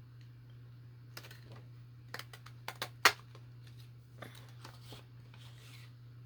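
Hand work with paper and a craft tool: scattered sharp clicks and short paper rustles, with one loud snap about three seconds in. A low steady hum runs underneath.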